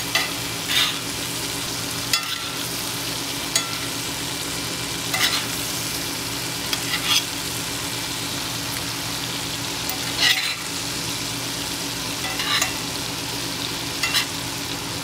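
Scallops frying in butter in a pan over low heat, a steady sizzle with short louder crackles every second or two.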